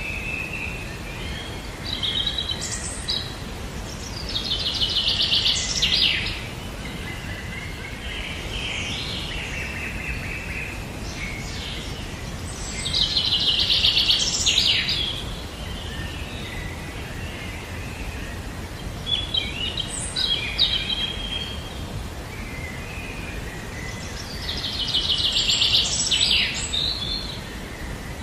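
A songbird singing: three rapid trilled phrases of about two seconds each, roughly ten seconds apart, with shorter chirps between, over a steady outdoor background hiss.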